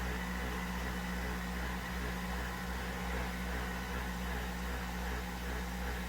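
Nespresso VertuoPlus coffee machine running with a steady electric hum and whir.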